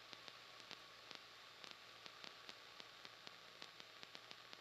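Near silence with faint, irregular ticks.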